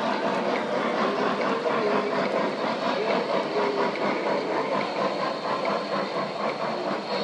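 Model steam locomotive pulling freight cars along the layout track: a steady mechanical rumble and hum of its motor and wheels.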